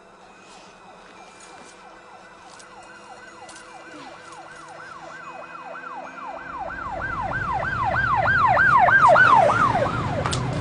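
Emergency vehicle siren on a fast yelp, about three rising-and-falling sweeps a second, growing steadily louder as it approaches. A low rumble joins it about six seconds in.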